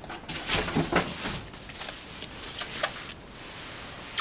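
Styrofoam packing block squeaking and scraping against its cardboard box as it is worked out, with several short squeaks in the first second and a half and a few more later.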